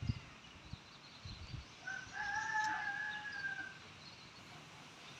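A bird call held at one steady pitch for nearly two seconds, starting about two seconds in, with a few soft low thumps in the first second and a half.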